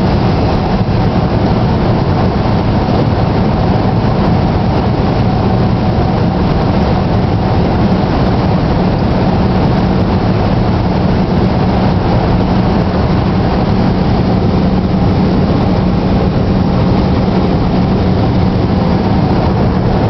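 Steady road and engine noise heard from inside a moving vehicle's cabin, an even rumble with a constant low hum and no change in pace.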